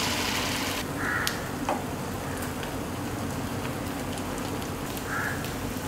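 Egg and crab-masala omelette batter sizzling in hot oil in a nonstick pan, a steady hiss, with a few light clicks of a steel spoon spreading the batter.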